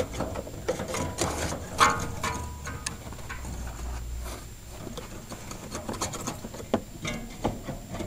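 Shovel scraping and knocking at ice and packed snow around a frozen heat pump cabinet, in an irregular run of scrapes and blows. The loudest blow, about two seconds in, clanks with a short ring.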